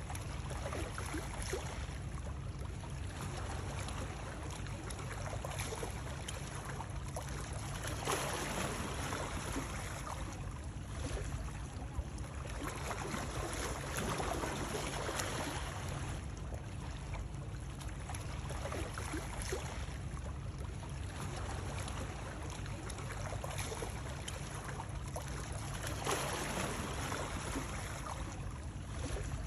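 Continuous water noise, like a stream or water lapping, over a steady low rumble. It swells louder every several seconds.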